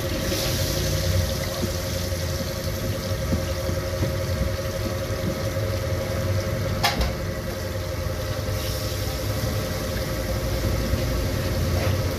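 Chapli kababs deep-frying in a large wok of oil, a steady sizzle over a low engine-like rumble with a steady hum. There is a single sharp click about seven seconds in.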